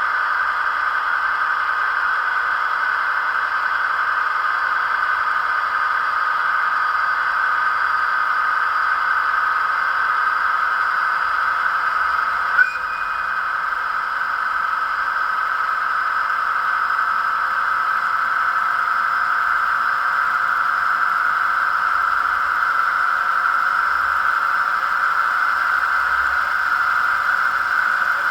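DF200 diesel locomotive engine sound played by an ESU DCC sound decoder through an HO-scale model's small speaker, running steadily, with a single short click about halfway through.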